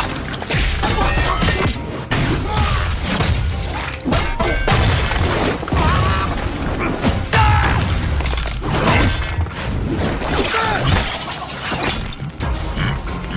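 Animated fight-scene soundtrack: music under repeated heavy impacts and the crash of shattering rock.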